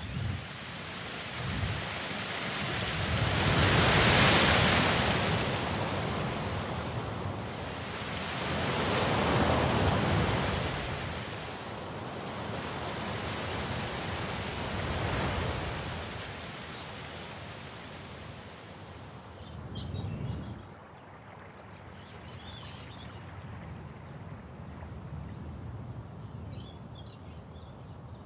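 A rushing noise that swells and fades in several long waves, loudest about four and ten seconds in, then settling lower, with a few faint high chirps near the end.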